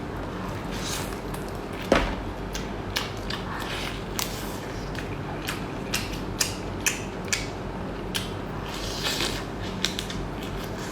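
Irregular sharp clicks and creaks from seafood being handled and eaten, over a steady low hum; the loudest click comes about two seconds in.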